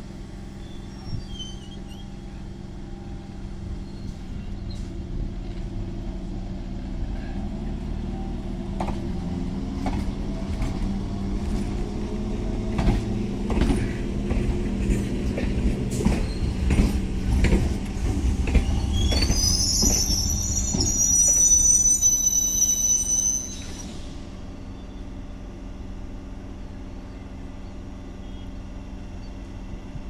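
MMTS electric suburban train rolling along the platform, its wheels clacking over rail joints. High brake squeal as it slows, cutting off abruptly about 23 seconds in as the train halts; a steady low hum carries on after.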